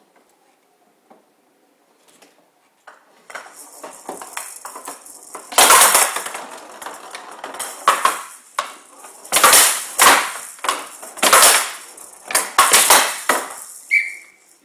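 A Showdown rally: the ball's metal beads rattle as it rolls across the wooden table, starting about three seconds in, with sharp loud strikes of the bats and bangs of the ball off the table's side boards, about eight hard hits in the last nine seconds. A brief high tone sounds near the end.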